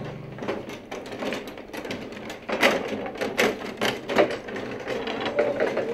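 Table football game in play: rapid, irregular clacking and knocking of the ball and the rods, with a few louder bangs near the middle.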